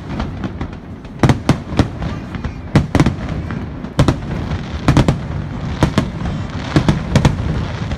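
Aerial firework shells bursting: about fifteen sharp bangs at uneven intervals, several coming in quick pairs or triples.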